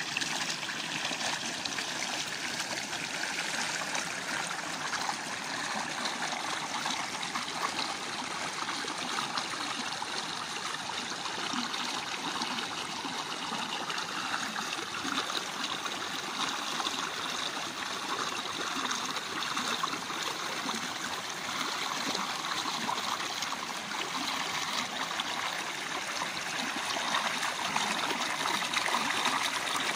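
Small waterfall and stream, water splashing and gurgling over rocks in a steady rush.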